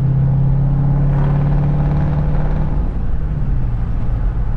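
Straight-piped 2018 Dodge Durango R/T's 5.7-litre Hemi V8 running loud and steady under way, heard inside the cabin; its resonators and mid mufflers have been cut off. The note drops lower about three seconds in.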